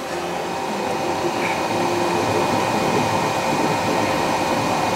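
FDM 3D printer running a print at high speed, its stepper motors whirring and its cooling fans humming in a steady mechanical drone.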